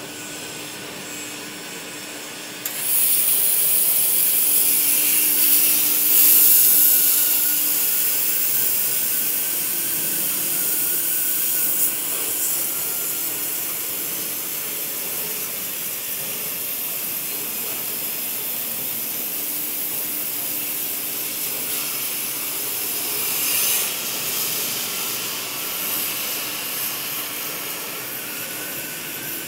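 Oxy-fuel cutting torches on a CNC gantry flame-cutting machine hissing steadily as they cut through steel plate. The hiss jumps suddenly louder about three seconds in and surges briefly once more near the end.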